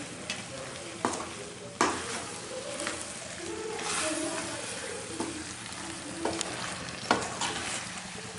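Wooden spatula stirring chicken curry in a steel pan on a gas stove, with the pan sizzling. A few sharp knocks of the spatula against the pan stand out, the loudest about two seconds in and about seven seconds in.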